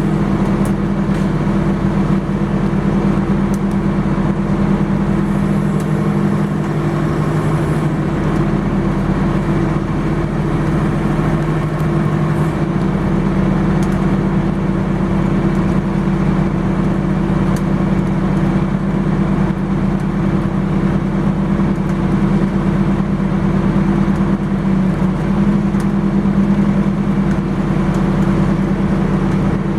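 Engine of tree-removal equipment running steadily at constant speed, an unbroken drone with no revving.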